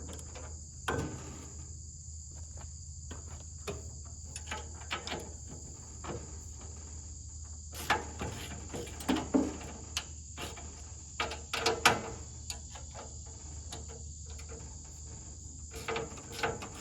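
Intermittent metallic clicks and clanks of a wrench working the bolts on a sawmill's cutting-head brackets as they are loosened, the loudest clusters about halfway and two-thirds of the way through. A steady chorus of crickets runs underneath.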